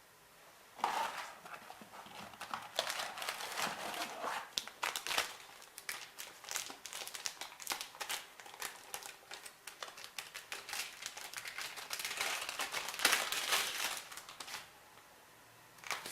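Plastic being handled, crinkling and rustling with many small sharp clicks, which stops about two seconds before the end and is followed by a brief last rustle.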